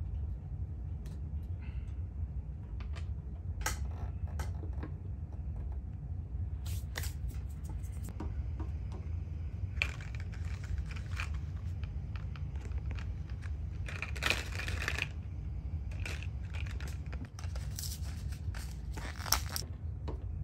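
Small bulbs being pulled from and pushed into the plastic socket strip of a 2010 Honda Pilot's third brake light: scattered clicks and short scrapes of plastic, over a steady low hum.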